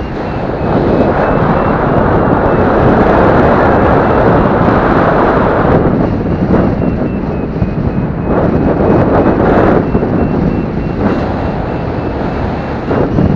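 Air rushing over the microphone of a paraglider pilot's camera in flight, rising and falling in gusts. Through it comes a faint train of quick high beeps from a flight variometer, the tone it gives while the glider climbs.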